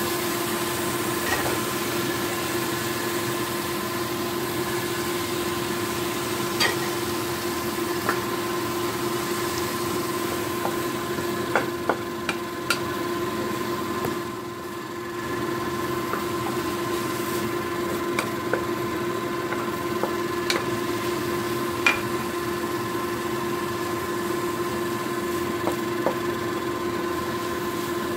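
A spatula scraping and clicking against a frying pan while sausage, egg and cabbage are stirred, with scattered sharp taps over a steady machine hum.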